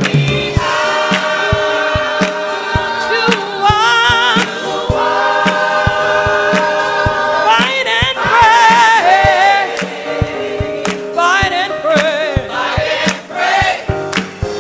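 Gospel choir singing live, holding long notes with vibrato and sliding vocal runs, over a steady beat of sharp percussive hits.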